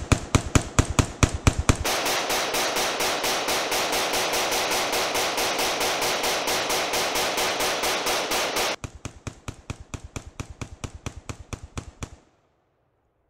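Ruger AR-556 rifle in .223/5.56 firing a long, rapid string of shots into a dead tree, about five a second. From about two to nine seconds in, dense ringing fills the gaps between the shots. The shooting stops about twelve seconds in.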